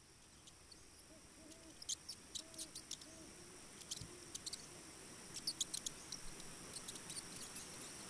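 Red squirrel's claws clicking and scratching on tree bark in quick bursts as it climbs the trunk, over a faint steady high insect hum. A few faint short low calls sound between about one and four seconds in.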